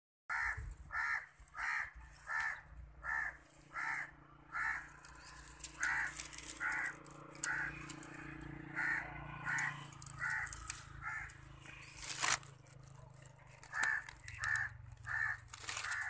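Common myna's harsh call, repeated about every 0.7 seconds with two short pauses, over the rustle of dry nest twigs being pushed aside. A sharp knock about twelve seconds in is the loudest sound.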